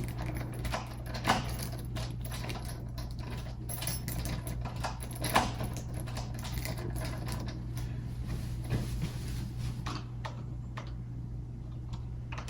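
Irregular small clicks, taps and rattles of metal door-lockset parts being handled and fitted onto a door, with two sharper knocks, over a steady low hum.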